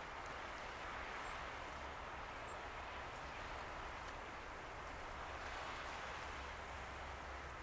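Steady wash of choppy harbour waves with a low steady rumble underneath. Two faint high chirps come about a second in and again a second later.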